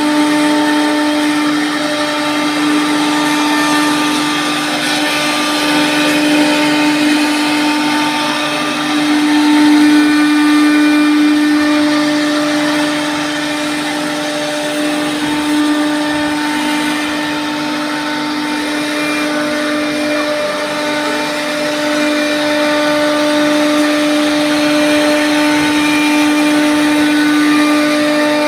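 Multi-head CNC router's spindle motors whining steadily at high speed while the bits cut grooves into a wooden door panel, with the noise of the cut.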